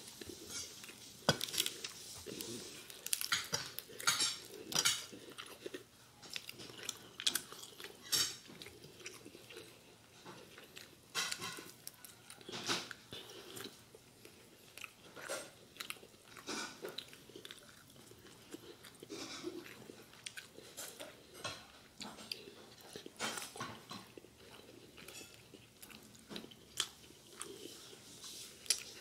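A person eating a whole roast chicken by hand: chewing and picking the meat apart, with many scattered short clicks and taps.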